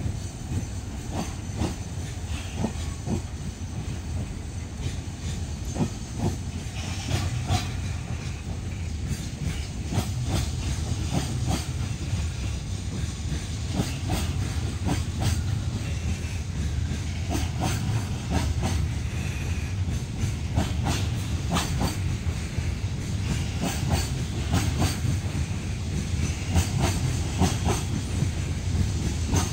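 Container freight train's wagons rolling past at speed: a steady rumble with frequent clicks of wheels over the rail joints, getting a little louder in the second half.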